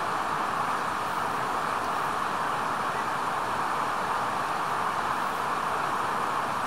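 Steady, even rushing hiss with no breaks or separate events.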